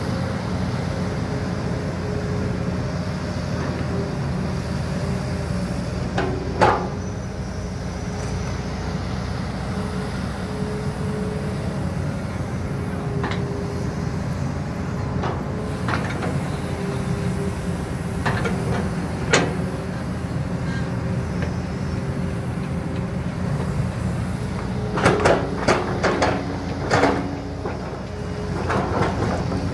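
Hydraulic excavators, a Kobelco and a Hitachi, working a trench: steady diesel engine drone with a faint steady whine, broken by sharp metallic clanks and knocks from the digging. The clanks come singly a few times, then in a quick cluster near the end.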